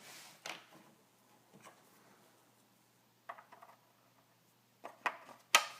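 Light clicks and scrapes of plastic fridge-door parts being handled, a few scattered, then a cluster ending in a sharper click near the end.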